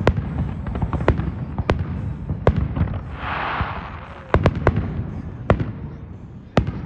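Aerial fireworks display: sharp bangs of shells bursting, about nine in all, several close together after the middle, over a continuous low rumble. A brief hiss rises and fades about three seconds in.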